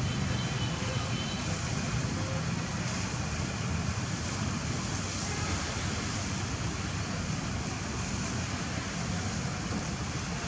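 Steady outdoor background noise: a constant low rumble with hiss above it, and no distinct calls or impacts.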